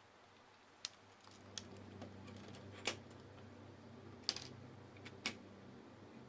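Plastic Lego Technic pieces being handled and clicked together: about five sharp, separate clicks, the loudest near the middle, over a faint steady hum.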